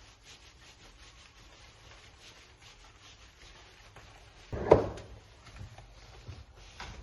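Faint repeated rubbing strokes, then a single loud knock a little past the middle, followed by a few light knocks.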